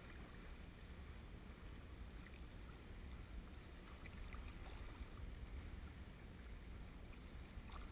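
Faint, steady rush of choppy river water against a canoe hull under way, with a low rumble underneath and a few soft paddle splashes.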